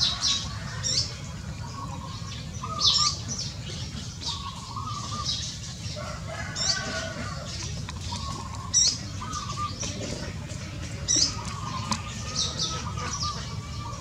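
Eurasian tree sparrows chirping: short, sharp chirps every second or two, some in quick pairs, over a steady low rumble, with lower wavering calls in between.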